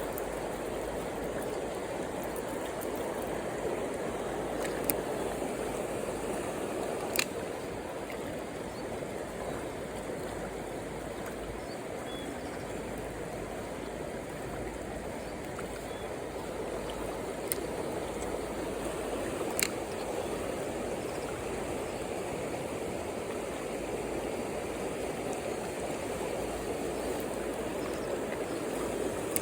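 Mountain stream rushing steadily over rocks, with four brief sharp clicks over it.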